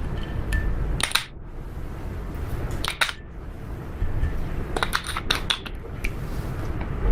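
Slime being worked by hand, with sharp clicking pops over a soft squishing rustle: a single click about a second in, another about three seconds in, and a quick cluster around five seconds in.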